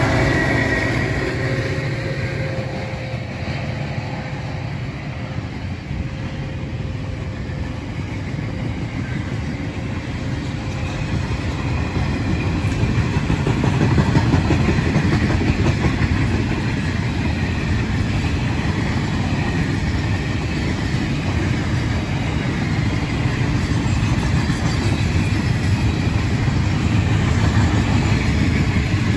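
Grain hopper wagons of a freight train rolling past on the track, a steady rumble of steel wheels on rail that builds again after a few seconds. In the first few seconds the sound of the second diesel locomotive fades away.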